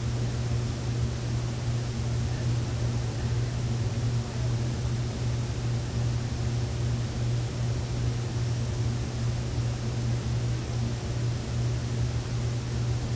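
Steady low hum with hiss and a faint high whine, unchanging throughout, with no distinct events.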